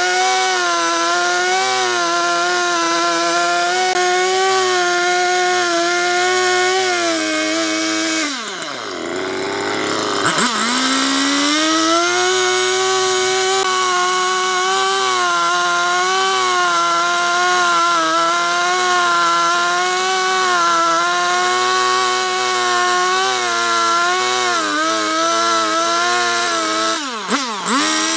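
Husqvarna two-stroke chainsaw running at high revs while cutting through a log, its pitch held steady under load. About eight seconds in the revs fall away and climb back up, and they dip briefly again near the end.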